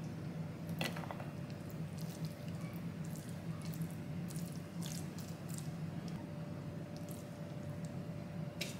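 Sauced spaghetti being lifted with tongs and laid onto a ceramic plate: soft wet squishes and light clicks of the tongs, sharpest about a second in and near the end, over a steady low hum.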